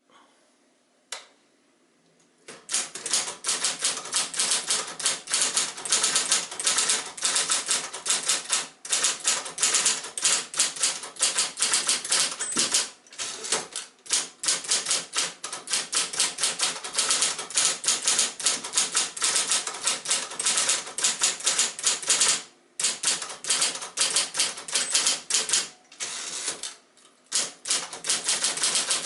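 Royal Apollo 10 portable electric typewriter typing: a fast, steady run of powered key strikes with a few short pauses. It begins after a single click about a second in.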